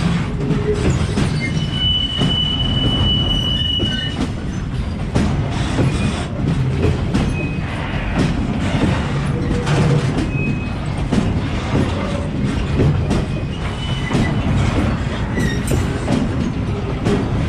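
Freight wagons rolling past: a long train of loaded car-carrier wagons, with steel wheels clattering over rail joints under a steady rumble. A high wheel squeal is held for about two seconds near the start, and shorter squeals come later.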